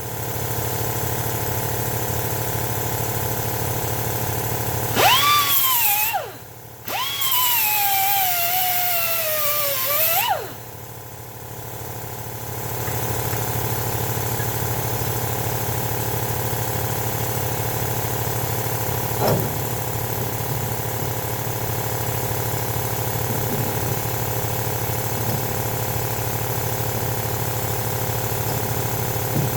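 Angle grinder with a cut-off wheel cutting into a rusted, seized shock absorber fitting. Two stretches of cutting about 5 seconds in give a loud whine that sinks in pitch as the wheel bogs under load. A steady mechanical hum runs under it throughout, with one knock near the end.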